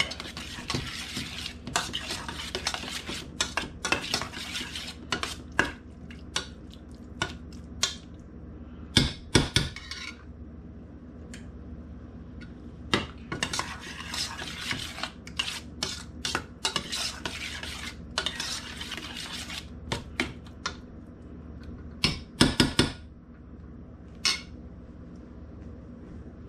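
A metal spoon stirring canned SpaghettiOs with meatballs in a stainless-steel saucepan: stretches of scraping against the pan with frequent clinks, and a few louder clanks about nine seconds in and again near twenty-two seconds.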